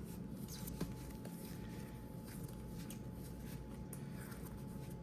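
Faint rustling and a few light taps of hands working bread dough on floured parchment paper, over a steady low hum.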